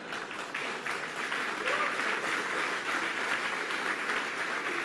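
Audience applauding, a steady patter of many hands that grows a little louder after the first second.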